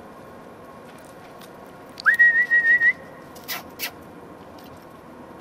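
A person whistling a single recall note to call dogs, about a second long. It swoops quickly up and then holds on one slightly wavering pitch. Two short sharp knocks follow about a second later.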